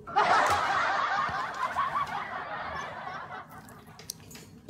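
Laughter, loudest at the start and fading away over about three seconds.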